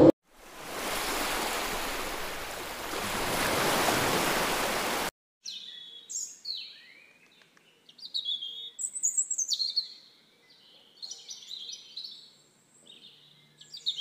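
A steady rush of water that cuts off suddenly about five seconds in, followed by small songbirds chirping: quick, high notes, many sliding downward, in bursts that are loudest around the middle of the remaining stretch.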